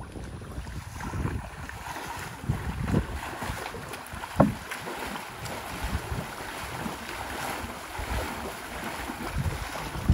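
Muddy river water sloshing and splashing as a man wades waist-deep, pushing a hand-held seine net along mangrove roots, with wind buffeting the microphone. A single sharp thump about four seconds in.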